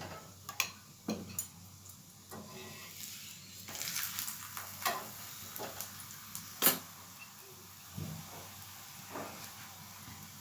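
Paratha frying in desi ghee on a hot tawa: a steady sizzle that grows louder for about a second and a half around three to four seconds in, with several sharp clicks of a utensil against the pan, the loudest near seven seconds in.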